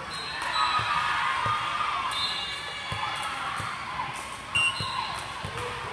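Echoing hall noise at a volleyball match: players and spectators shouting and cheering after a point, loudest in the first two seconds, with scattered low thuds of balls bouncing on the court. A short, sharp loud sound comes about four and a half seconds in.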